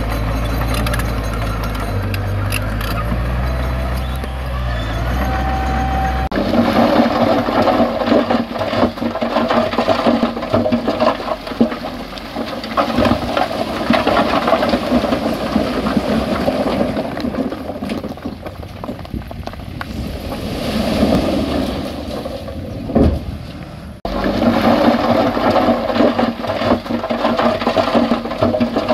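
Heavy diesel earth-moving machinery working rocky soil. A steady engine note at first changes abruptly about six seconds in to a dense rattling noise of machine and rock, with another abrupt change near the end.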